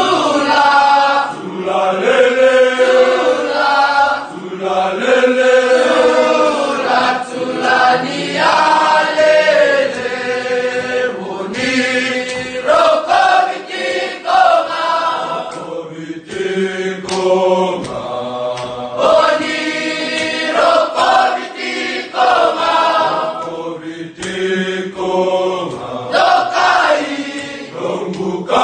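A group of male students singing a devotional song together in several-part harmony, with low and higher voices holding notes and moving through the phrases.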